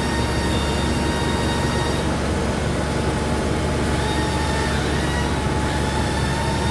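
Okuma Howa milling machine running: a steady mechanical hum with thin, high whining tones above it.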